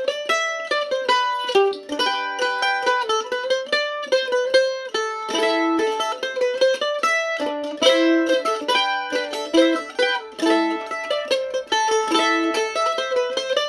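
Solo mandolin playing a melody of quick plucked notes, several to the second.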